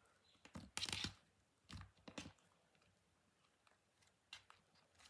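Pink fluffy slime being squished and pulled by hand, giving a few short, faint crackling squelches, the loudest about a second in.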